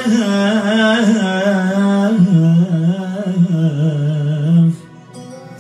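Tallava music played on an arranger keyboard: a wavering, heavily ornamented lead melody that steps down in pitch and breaks off suddenly near the end, leaving quieter held accompaniment chords.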